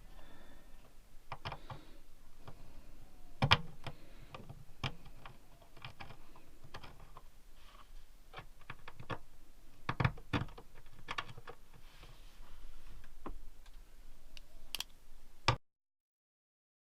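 Irregular clicks and knocks of a metal heater mounting plate and parts being handled and set down in place, with a few sharper knocks. The sound cuts off suddenly near the end.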